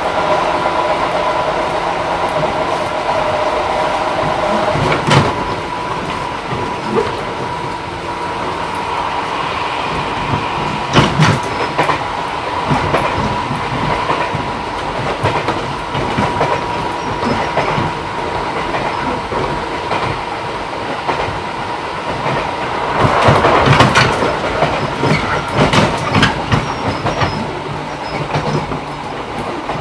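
Running sound inside a JR 211 series electric train's motor car: the DC traction motors and gearing hum steadily under the rumble of the wheels on the rails. The wheels clack over rail joints about 5 and 11 seconds in, with a louder run of clacks a little past the middle.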